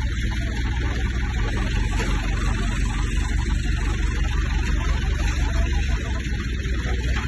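15 kVA diesel generator running steadily: an even engine drone with a low hum.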